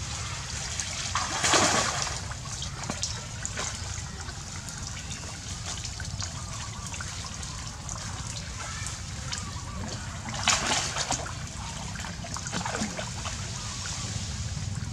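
Water splashing and trickling around flooded tree roots as macaques move through it, with two louder splashes, one a second or two in and one about ten seconds in.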